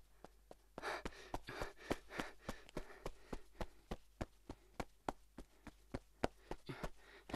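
Quick, regular footstep taps, about four a second, with soft rustling in between.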